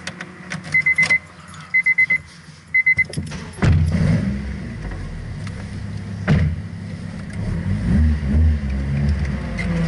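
A car's electronic warning chime beeps in three quick runs. About three and a half seconds in, the Honda Integra DC5's 2.0-litre four-cylinder engine starts and idles, with a couple of light revs near the end.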